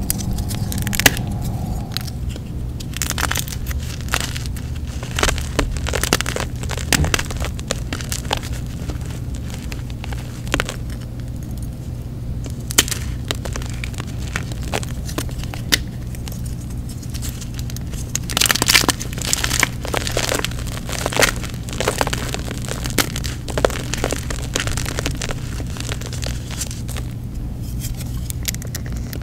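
Blocks of dyed gym chalk crushed and crumbled by hand: scattered crunches and crackles as pieces break apart and fall, denser in bursts over two-thirds of the way through, over a steady low hum.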